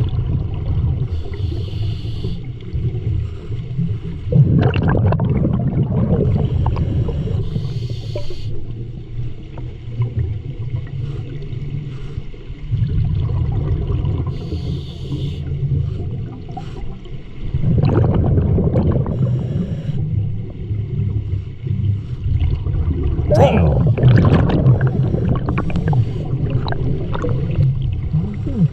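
Scuba diver breathing underwater through a regulator, over a steady low rumble. Exhaled bubbles gurgle up in three louder bursts.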